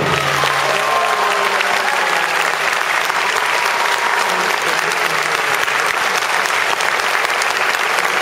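Audience applauding, dense and steady. The last notes of the music fade out in the first second or two.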